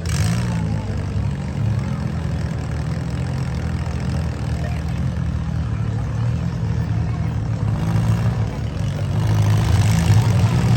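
Demolition derby car engines idling steadily, getting somewhat louder near the end.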